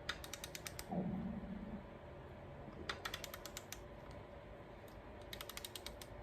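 Ratchet of a large torque wrench clicking in three quick runs as a small bolt on a Yamaha R3 engine case is worked, with a short creak that drops in pitch and then holds low about a second in.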